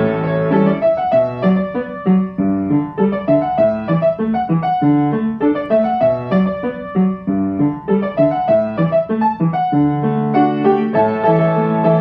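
Background piano music, a steady flow of notes and chords at an even pace.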